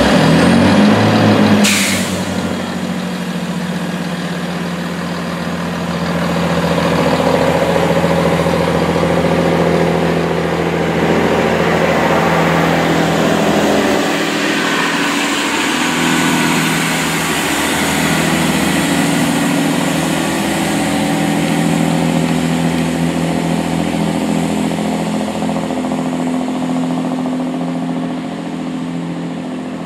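Diesel train engines running steadily as a GWR diesel train moves slowly along the platform, with a brief sharp high sound about two seconds in. Later a GWR Class 166 Turbo diesel multiple unit approaches, its engines running.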